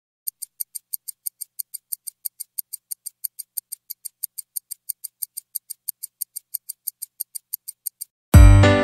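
Rapid, even ticking, about six light high-pitched ticks a second, like a clock or timer sound effect. Just before the end the ticking stops and loud music with a deep bass beat comes in.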